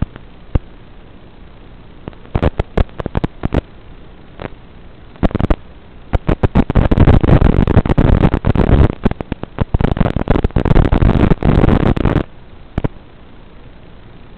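Crackling static from an analog FPV video receiver, the sign of the video signal breaking up. Scattered sharp crackles start about two seconds in, and a dense, loud stretch of crackling runs from about six to twelve seconds, over a low steady hiss.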